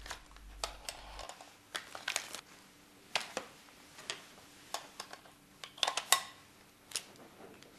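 Sparse light clicks and taps of plastic Petri dishes being handled and set down on a lab bench, some in quick pairs, at irregular intervals.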